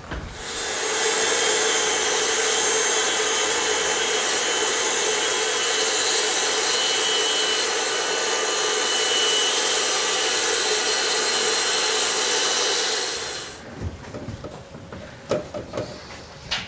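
Handheld power saw cutting through cabinet wood, running steadily for about thirteen seconds before stopping. After it stops come a few scattered knocks and handling sounds.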